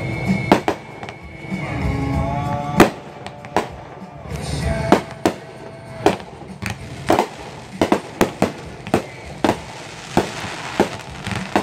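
Consumer fireworks going off: a string of sharp bangs as shells launch and burst, coming faster in the second half, about two a second, with music playing beneath.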